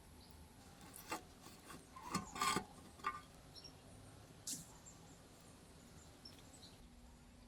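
A few short scrapes and clicks of hand work on the motorcycle's fuel tank, a cluster of them loudest about two and a half seconds in and one more a little later, over faint background.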